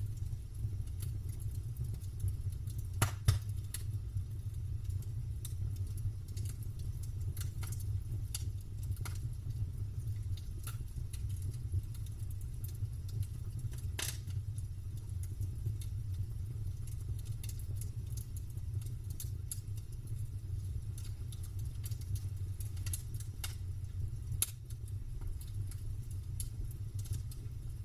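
Campfire crackling: scattered, irregular pops and snaps of burning wood, the sharpest about three seconds in and again near the middle, over a steady low rumble.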